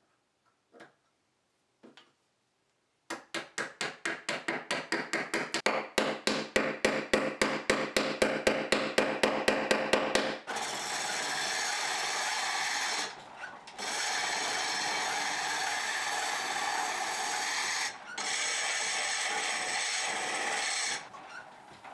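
Quick light hammer taps, about five a second and growing louder, drive a steel ring onto the end of a wooden chisel handle. Then comes a steady scraping as a tool cuts at the handle spinning in a treadle lathe, broken twice briefly, stopping a second before the end.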